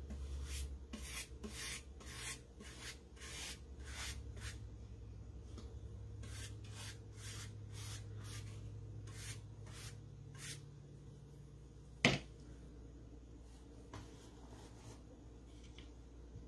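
Paintbrush stroking paint onto the edges of a wooden cutout pumpkin: a run of short scratchy brush strokes, one to two a second, then a single sharp click about twelve seconds in.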